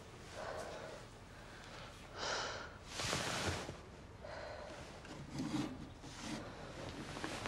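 A person breathing hard in several ragged, gasping breaths, the loudest about three seconds in.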